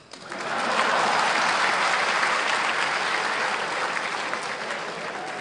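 Audience applauding, rising quickly at the start, then slowly dying down.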